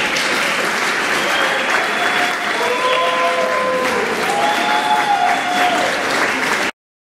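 Audience applauding, with a few long cheering voices over the clapping; it cuts off abruptly near the end.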